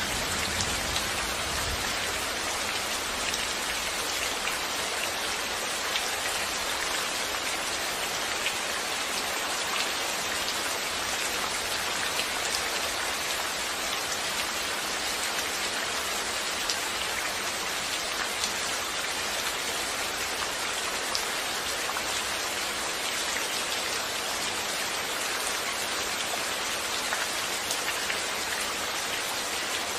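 Steady rain falling, with a constant hiss and scattered faint drop ticks.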